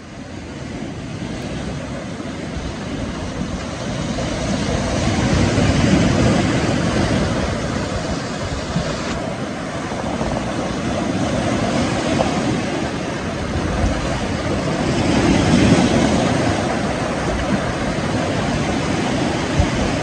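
Sea surf breaking and washing over black basalt boulders in a rocky cove. It makes a steady rush that rises at the start and swells twice, loudest about six seconds in and again near sixteen seconds.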